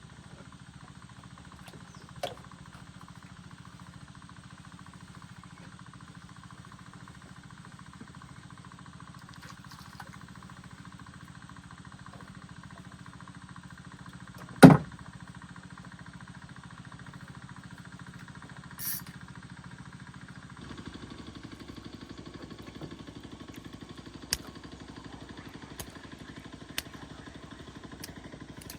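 A small engine running steadily at idle, with one sharp loud click about halfway through and a few fainter ticks later; the hum shifts slightly about two-thirds in.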